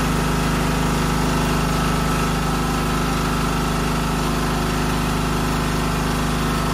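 An engine idling steadily at an even pitch, with no change in speed.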